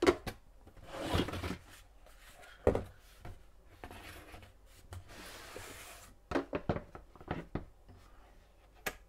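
Hand-handling of a cardboard box and a hard plastic cordless blower body: rustling and scraping of the cardboard, with a knock, then a quick run of plastic knocks and clicks as the blower is lifted out and set down on a hard floor.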